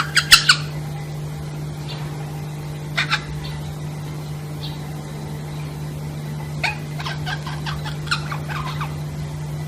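A parrot making short, sharp chirps and clicks in scattered bunches, with a busier run of them near the end, over a steady low hum.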